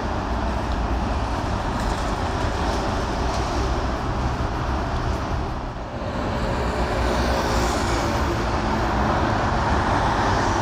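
Steady street traffic noise from vehicles passing on a busy city road, with a slight lull about six seconds in.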